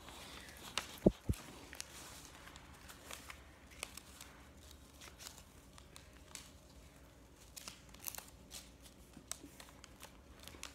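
Paper airplane being handled and refolded, with scattered crinkles, rustles and small clicks of the paper. Two quick low thumps about a second in.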